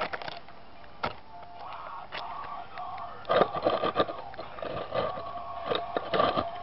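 Sped-up sound of sandpaper being rubbed on an Anycubic Photon's build plate: irregular bursts of rough scraping over a steady whine. The strongest bursts come in the middle and again near the end.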